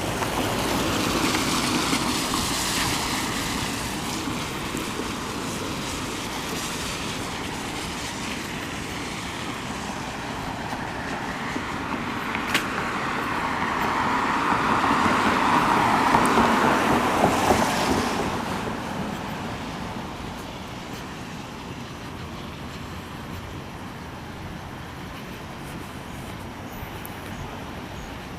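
Road traffic: vehicles passing by, one swelling and fading near the start and a louder one about halfway through, over a steady noise.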